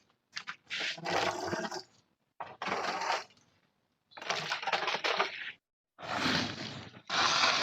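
Five rough, noisy rushes, each about a second long, separated by short gaps.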